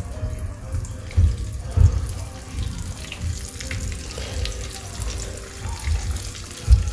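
Floured shrimp frying in hot oil in a stainless steel pan: a steady hiss with fine crackling that grows busier a couple of seconds in as more shrimp go into the oil, with a few low thumps.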